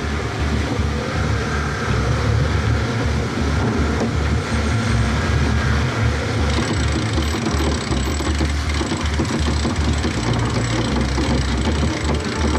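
Strong wind buffeting the microphone in uneven low gusts over a steady rush of wind and sea.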